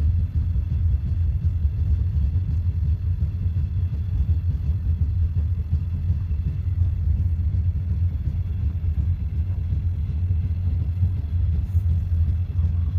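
Passenger train running, a steady low rumble with no breaks.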